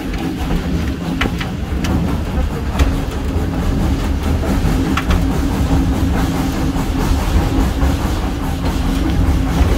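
A steam-hauled train running, heard from an open coach coupled right behind the 1927 SACM 040 T steam tank locomotive: a steady low rumble of wheels on track with a few scattered sharp clicks over rail joints.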